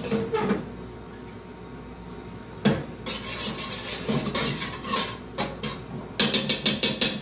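A spoon stirring pasta sauce in a large aluminium pot, scraping and knocking against the pot's sides, with one sharp knock partway through and a quick run of clinks near the end.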